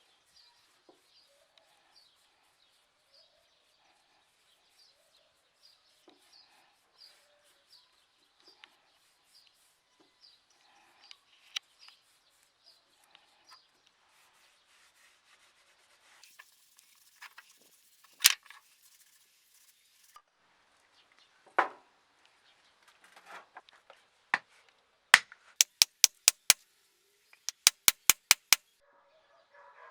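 Faint bird chirping, then a few single sharp knocks and, near the end, two quick runs of about five even hammer blows.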